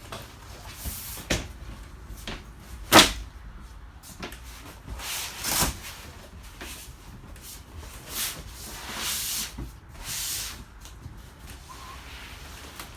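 Knocks, clicks and scuffing from fittings inside a travel trailer being handled, like a cupboard or panel opening and closing. The loudest sound is a single sharp knock about three seconds in, followed by several longer scuffing swells.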